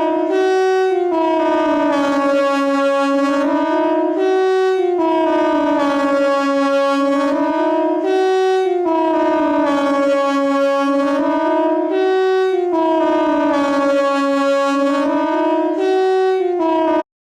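Siren sounding in a repeating cycle: the pitch jumps up, then slides back down, about every four seconds. It cuts off suddenly near the end.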